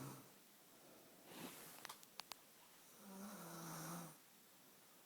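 Quiet snoring from a sleeper: a soft breath, a few faint clicks, then one low, pitched snore lasting about a second, about three seconds in.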